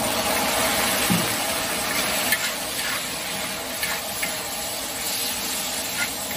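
Sliced meat stir-frying in a large wok: steady sizzling while a metal spatula stirs and tosses it, with a few light scrapes and clinks.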